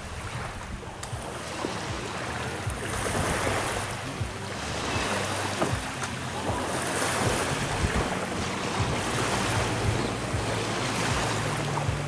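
Lakeshore ambience: wind on the microphone and small waves lapping at the edge of the dam, with the faint steady hum of a boat's outboard motor running underneath.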